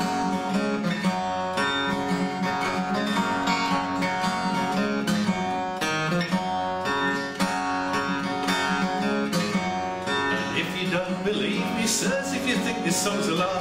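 Steel-string acoustic guitar played in a steady, even rhythm as an instrumental break in a folk song. Near the end a man's singing voice comes in over the guitar.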